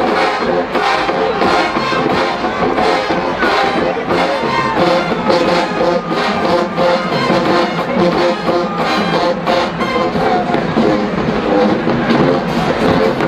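College marching band playing: a full brass section over a drumline with a steady beat.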